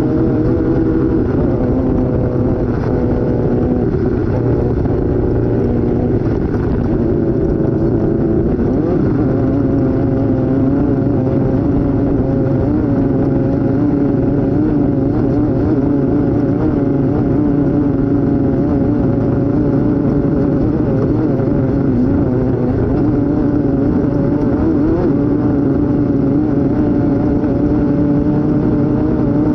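Off-road race vehicle's engine running hard through a lap, its revs rising and falling unevenly and continuously, with the steady rush of driving noise underneath.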